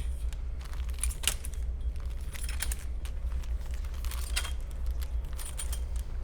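A steady low hum with scattered light clicks and rattles, several small clusters a second or so apart.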